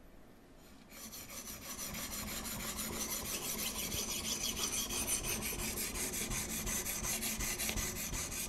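A Venev abrasive stone on a TSPROF K03 Pro guide rod scraping back and forth along a Kh12MF steel knife blade in quick, even strokes, starting about a second in. The bevel is being ground until a burr forms along the edge.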